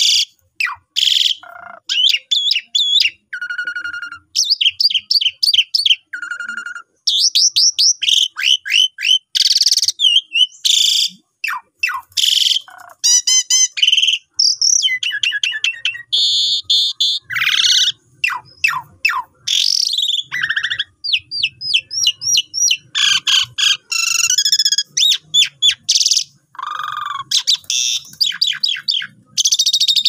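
Javan pied starling (jalak suren) singing a long, nearly unbroken song: quick strings of sweeping whistles, harsh chatters and rapid trills, with only brief pauses.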